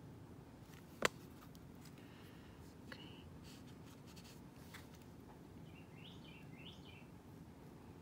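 Faint scratching of a fine paintbrush on a small painted rock, with one sharp click about a second in and a few faint high chirps near the end.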